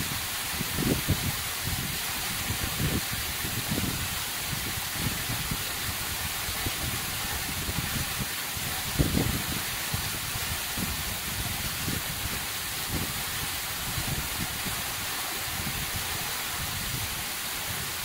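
Waterfall of thin streams and scattered drops falling down a rock cliff onto boulders and a pool: a steady hiss of falling and splashing water, with irregular low thuds throughout.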